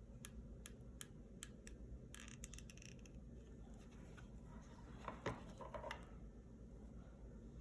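Quiet crafting sounds of twigs being hot-glued: a few light clicks in the first second or so, then a short scrape with a faint squeak about five seconds in.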